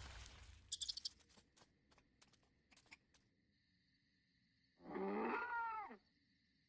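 A single animal call about a second long near the end, pitched with several overtones that bend downward, after a few faint scattered clicks.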